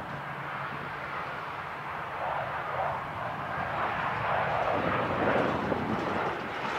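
Jet engines of a twin-jet airliner running as it taxis: a steady, wide jet noise that grows a little stronger about two seconds in.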